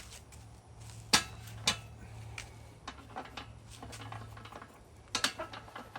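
A few sharp knocks and clicks of hard objects being handled, two loud ones about a second in and a quick cluster near the end, over a low steady hum.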